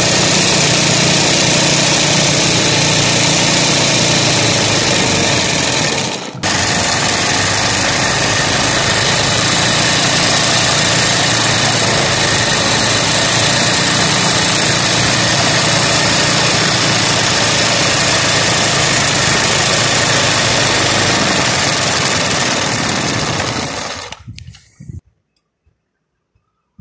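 Sewing machine running steadily at speed, with a brief break about six seconds in, then stopping near the end.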